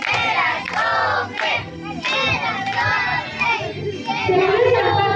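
Group singing a birthday song, led by a woman's voice amplified through a microphone and speaker.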